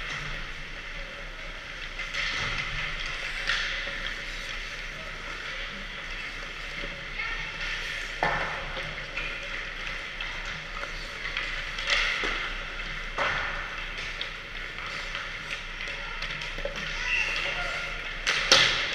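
Ice hockey practice sounds: a steady scraping hiss of skate blades on ice, with sharp cracks of sticks hitting pucks a few times, echoing in the rink, and distant voices.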